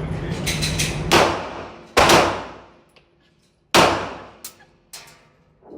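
Gunshots at a shooting range: three loud cracks about a second in, two seconds in and near four seconds, each followed by a ringing tail, with smaller sharp cracks between them.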